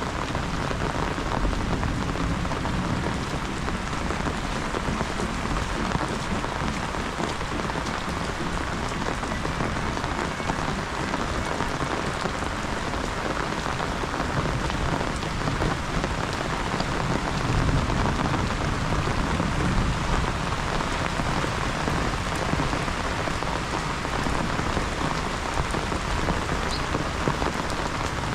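Heavy rain falling steadily, a dense even hiss of drops on surfaces, with a low rumble swelling now and then beneath it that may be distant thunder.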